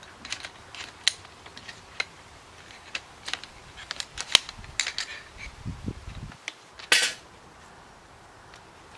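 Sharp clicks and clacks of a folding camp chair's metal frame poles being unfolded and snapped into place, with a brief louder rustle near the end.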